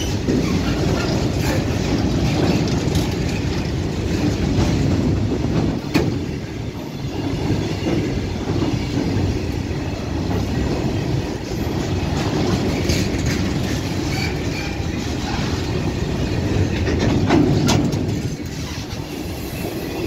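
Freight train of covered goods wagons rolling past at close range: a steady rumble of steel wheels on the rails with clickety-clack, a couple of sharp metallic knocks and faint high wheel squeals. The rumble eases near the end as the brake van at the tail goes by.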